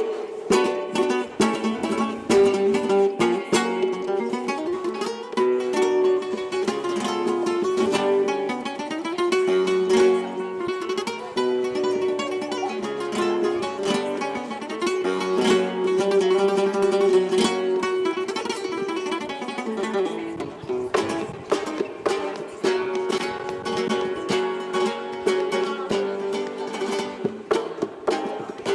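Music played on plucked string instruments, guitar-like, with quick strummed and picked notes over a held melody line.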